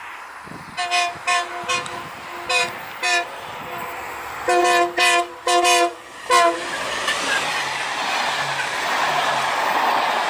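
Diesel locomotive horn, a multi-note chord, sounding a quick string of short blasts and then four longer blasts as a passenger train approaches. From about seven seconds in, the rushing noise of the locomotive and coaches passing close at speed grows louder.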